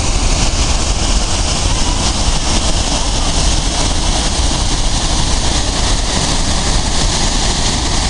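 Chitrakote Falls on the Indravati River roaring: a steady, loud wash of falling water with a deep rumble underneath.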